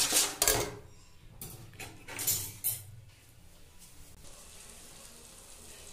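Metal slotted spoon stirring and scraping thick curd masala gravy in a kadai, with loud strokes in the first second and a few lighter scrapes and clicks around two seconds in, then only a faint steady hiss.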